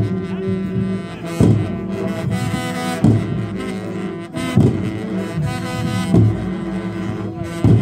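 Music of a Zulu traditional procession: low, sustained droning tones with a heavy beat about every one and a half seconds, the tones changing pitch on each beat.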